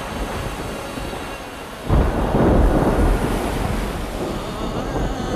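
Thunder rumbling over a steady wash of wind, with a heavy roll of thunder breaking in about two seconds in and slowly fading.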